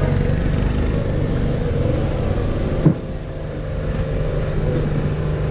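Old wooden electric tram running on its rails, a steady low rumble heard from inside the car, with one sharp knock about three seconds in.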